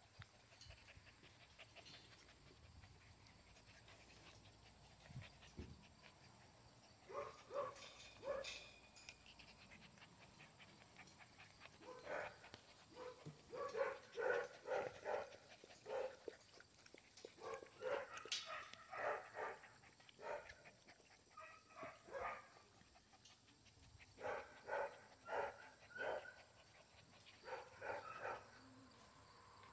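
Puppies yapping in short, high-pitched bursts during play-biting, in quick runs of several at a time, starting after a quiet first few seconds.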